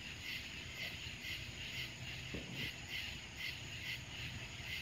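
Night insects chirping in a steady rhythm, about two to three pulses a second.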